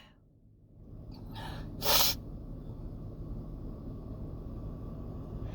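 A person's quick, gasping breaths in between sneezes during a sneezing fit: a faint one about a second and a half in, then a sharper, louder one about two seconds in.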